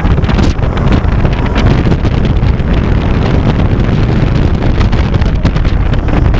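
Loud, steady wind rushing over a head-mounted camera microphone on a moving roller coaster, the Xcelerator hydraulic-launch coaster, with a heavy low rumble underneath.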